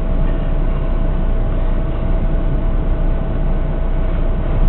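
Snowplow truck's engine idling as heard inside the cab: a steady low rumble with a faint constant hum above it.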